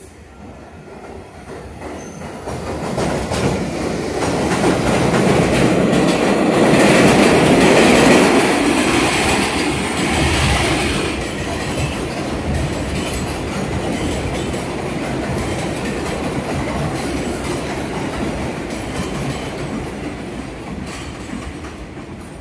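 R62A subway train of the 6 line running along an elevated steel structure. It grows louder to a peak about eight seconds in, stays loud, then fades near the end.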